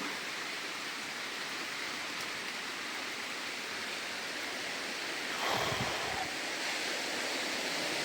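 Steady hiss of heavy rain falling, with a brief louder swell about five and a half seconds in.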